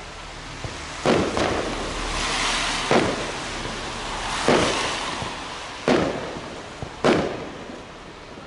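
Aerial fireworks shells bursting in a display: five loud bangs about one to two seconds apart, each trailing off in an echo, with a hissing crackle between them.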